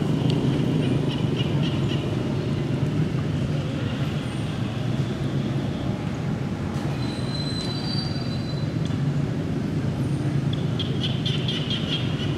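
Steady low outdoor rumble, with short high-pitched chirping at about half a second in and again near the end, and one brief high tone in the middle.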